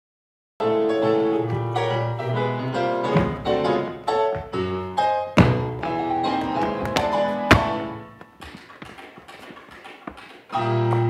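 Upbeat band music with piano, with several sharp percussive hits. It starts after a half-second of silence, dips in level about two-thirds of the way through, and comes back loud near the end.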